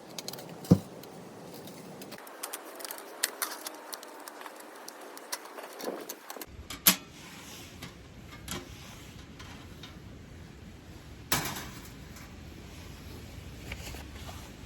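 Scattered small clicks and clinks of objects being handled, with a sharp knock about a second in, another near the middle and a third about three seconds before the end.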